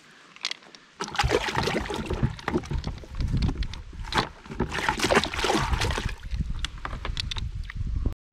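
Water splashing and sloshing in a plastic bait bucket as a live chub is dropped in, mixed with knocks and rustling from a landing net being set over the bucket. It starts abruptly about a second in, runs on busily with many sharp clicks, and cuts off just before the end.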